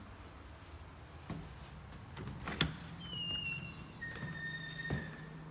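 Apartment front door unlatching with a sharp click, then its hinges squeaking in two drawn-out high squeals as it swings open. A low steady hum comes in with the click.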